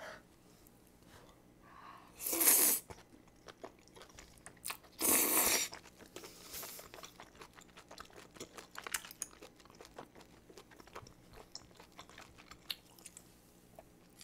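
Close-miked eating of spicy stir-fried octopus: two loud slurps as a long tentacle is sucked in during the first few seconds, then steady wet chewing with many small clicks.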